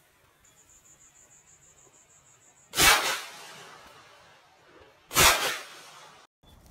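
Two shotgun shots about two and a half seconds apart, each a sharp, loud report with a short fading echo.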